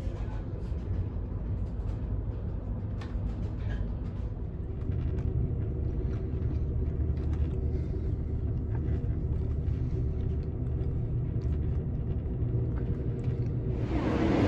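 Steady low rumble and hum of a moving passenger train heard from inside, with a few faint ticks. Near the end a much louder rushing noise sets in suddenly.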